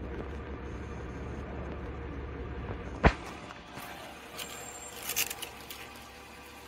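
A vehicle engine running steadily at idle, with one sharp bang about three seconds in, then a few light metallic clinks.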